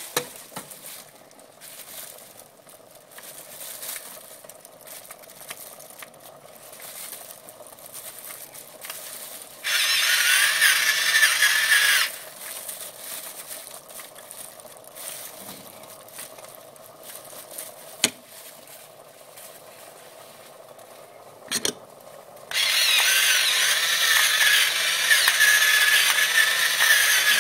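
Electric pepper mill grinding black pepper into a pot in two runs, a steady motor-driven grind. The first run lasts about two and a half seconds and comes about ten seconds in; the second lasts about five seconds near the end.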